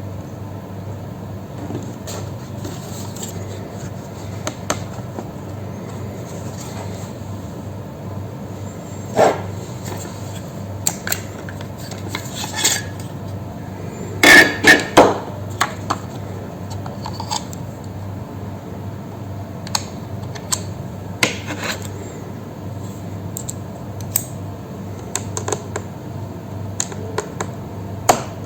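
Scattered small clicks and clinks of a screwdriver and tiny screws against a laptop's plastic case, with a quick cluster of louder clinks about halfway through, over a steady low hum.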